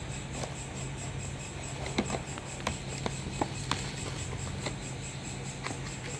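Kraft-paper takeaway box being handled and its folded cardboard flaps opened: scattered light clicks and rustles, a few a second, over a steady low hum.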